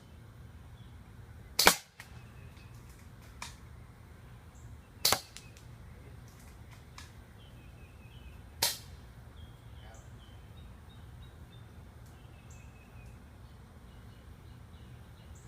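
AGM MP001 airsoft sniper rifle, a spring-powered bolt-action VSR-10 clone, firing three sharp shots about three and a half seconds apart, with a fainter click between the first two.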